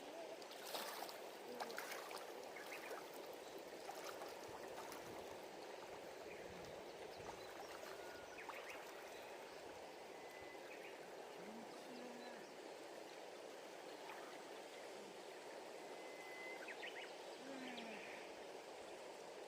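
Faint, steady rush of a river's flowing water, with a few short chirps scattered through it and some light clicks in the first couple of seconds.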